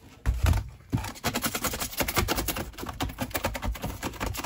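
A thin plastic storage box knocks a few times as it is handled. Then a sharp deburring blade scrapes quickly around the edges of holes cut in its wall, shaving off the rough plastic in a fast run of scratchy clicks.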